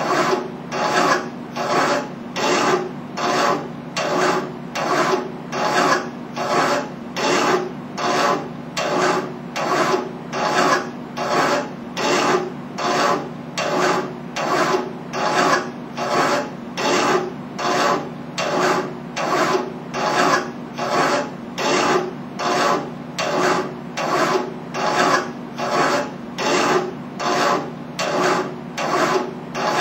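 Hand file rasping on a metal tube held in a vise, in steady, even strokes a little over one a second.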